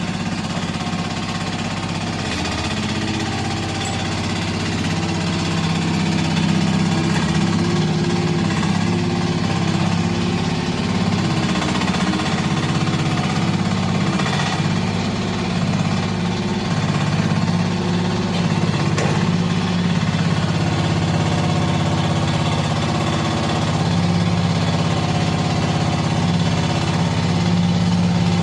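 Mini excavator's engine running steadily.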